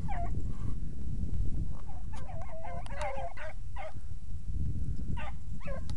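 A pack of hounds baying as they run a rabbit, several voices overlapping in wavering calls: a short one at the start, a cluster about two to four seconds in, and more near the end.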